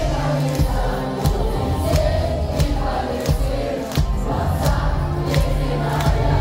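Live pop-punk band playing loud: drums, bass and distorted guitars, with many voices of the crowd singing along.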